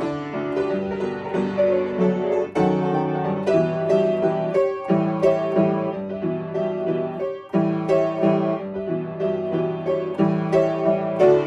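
Upright piano played with both hands: a children's-song melody over chords, in short phrases with brief breaks every two to three seconds.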